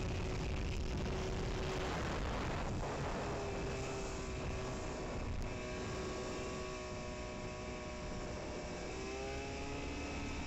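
A 1971 GW Invader mini speedboat's engine running at speed, with a broad rush of wind and water. The engine's pitch shifts near the end.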